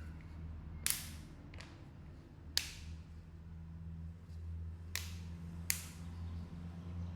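Phone back cover snapping onto the frame: five sharp clicks spread over several seconds, one fainter than the rest, as its clips seat, over a steady low hum.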